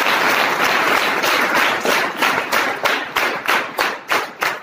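Audience applause that, about two seconds in, settles into rhythmic clapping in unison at about three to four claps a second, then thins out near the end.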